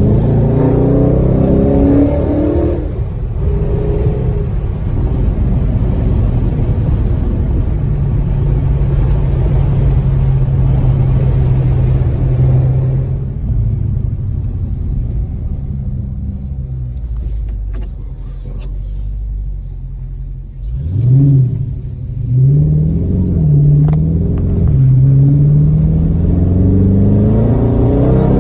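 2020 Dodge Charger Scat Pack's 392 (6.4-litre) HEMI V8 under hard acceleration. The engine revs climb at the start, hold steady, then ease off. About three-quarters of the way through comes a sharp rev spike, followed by a few quick rises and falls, and near the end it pulls hard again.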